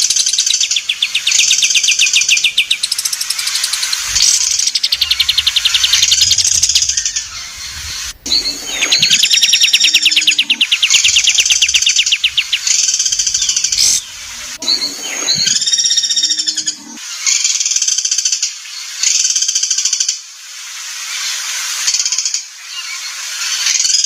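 Songbird singing loud, fast phrases of rapid trills and clear whistled notes, repeated one after another with short breaks.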